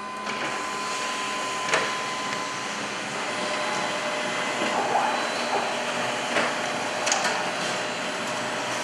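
HP LaserJet M436nda A3 laser copier running as it prints an A3 copy: a steady mechanical whir with a few sharp clicks as the sheet feeds through and out to the exit tray.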